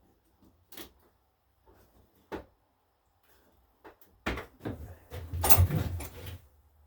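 Hands working on a garden tractor: a few separate knocks, then a run of louder clunks and rattling about four to six seconds in.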